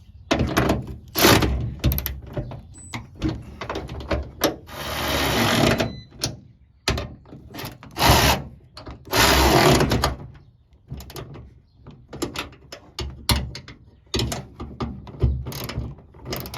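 Wrenches clicking and clanking on metal as a nut on a hood lift support is tightened, with many sharp ticks and knocks and two longer rasping stretches of about a second and a half each.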